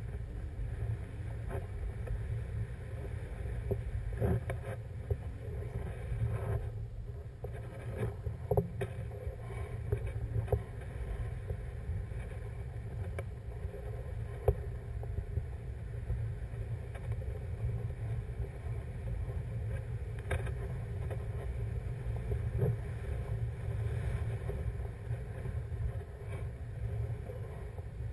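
Wind rushing over the camera microphone in paragliding flight: a steady low rumble with scattered small knocks.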